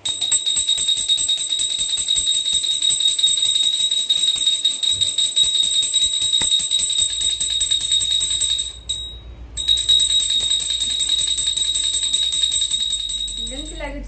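Small brass puja hand bell (ghanti) rung rapidly and continuously during aarti, a bright steady ringing. It stops for under a second about nine seconds in, then resumes and fades out near the end.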